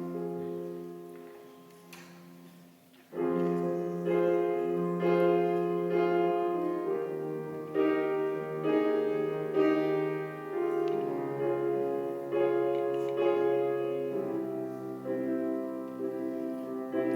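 Piano introduction to a song, playing slow sustained chords. A soft chord opens it, and the fuller accompaniment comes in louder about three seconds in.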